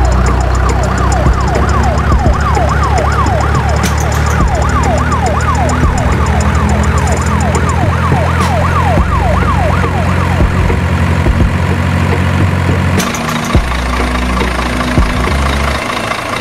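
Electronic siren sound effect: a quick falling wail, about three a second, that fades out about ten seconds in, over a steady low engine drone. The sound changes abruptly about thirteen seconds in, leaving a rougher engine sound.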